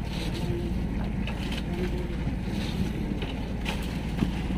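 Small fishing boat's engine running steadily with a low hum, under wind on the microphone and a few faint knocks.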